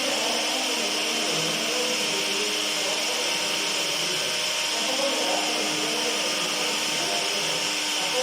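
Electric kitchen blender running steadily.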